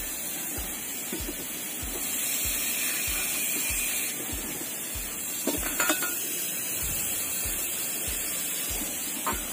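A few sharp metallic clinks of metal tools, a cluster about five and a half seconds in and one more near the end, over background music with a steady low beat of about two a second.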